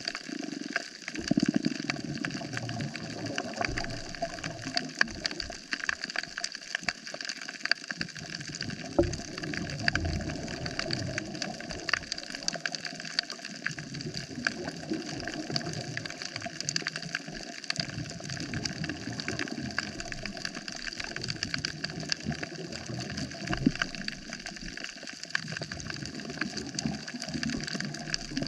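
Underwater ambience on a coral reef: a dense, continuous crackle of short clicks over a steady hiss, with a low rumble that swells and fades every few seconds.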